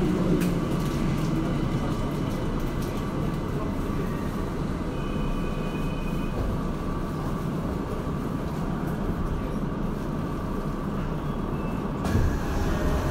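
Tokyo Metro Marunouchi Line 02 series subway car heard from inside while running between stations: a steady rumble of wheels on rail and running gear. It grows louder near the end.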